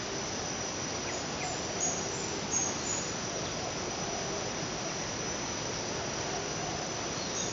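Steady outdoor insect chorus with a continuous hiss, and a few short high chirps about two seconds in.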